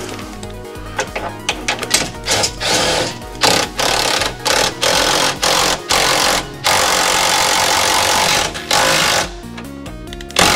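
Power tool driving a new lower control arm's bolt home in a series of short bursts, then one longer run of about two seconds, until the bolt takes its thread.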